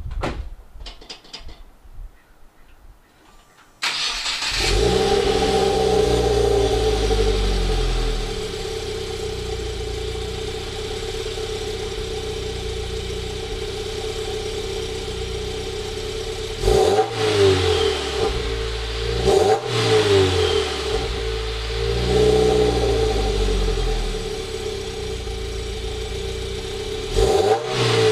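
2015 Subaru WRX's turbocharged 2.0-litre flat-four, breathing through a newly fitted STI midpipe, heard at the tailpipes: it starts suddenly about four seconds in, runs at a raised cold idle, settles, then is revved in short blips to 3,000–4,000 rpm several times. Its idle rises again partway through because the engine is still a little cold, and the exhaust note is far less raspy, with only a tiny rasp left.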